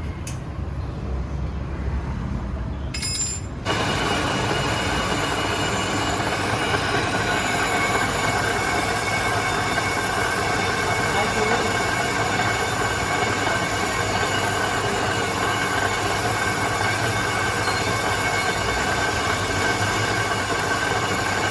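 Rusty brake disc being resurfaced: a machine rumble, then about four seconds in a steady metal-on-metal screech with several high ringing tones sets in suddenly and holds.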